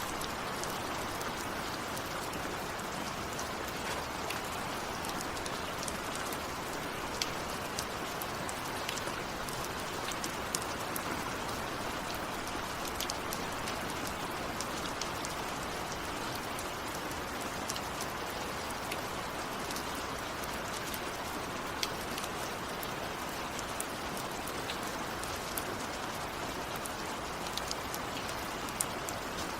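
Steady rain, a continuous even hiss with the sharp ticks of single drops striking a surface scattered all through.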